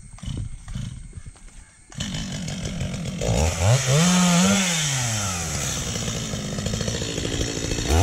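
Stihl MS 250 two-stroke chainsaw comes in about two seconds in and runs unevenly at low speed. It is then revved up hard and let back down to idle twice, once in the middle and again near the end. Before it starts there is only light rustling and clicking of brush being handled.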